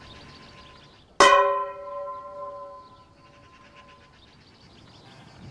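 A handbell struck once about a second in, ringing with several overtones that die away over two to three seconds. The fading ring of an earlier strike is heard before it.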